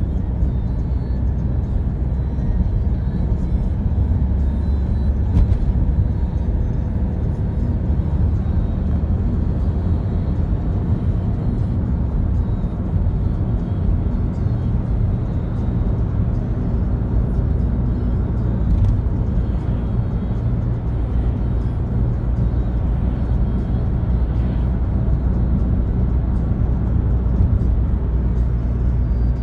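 Steady engine and tyre drone inside a moving car, with music playing over it.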